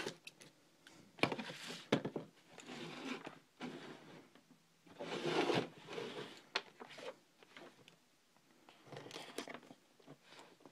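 Packaging being opened and handled by hand: irregular rustling and scraping with sharp clicks, in several bursts.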